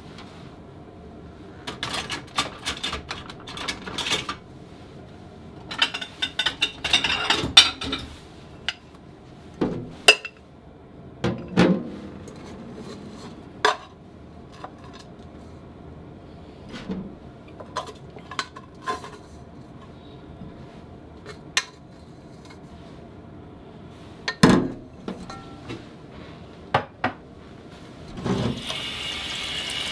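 Scattered clinks and knocks of a metal pot and a small dish against a stainless steel sink while rice is washed by hand in the pot. There is a short stretch of splashing water about a quarter of the way in. Near the end the tap comes on and water runs steadily.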